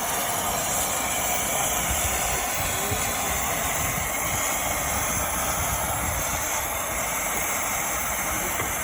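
A 15-inch gauge miniature steam locomotive standing at the platform, hissing steam steadily.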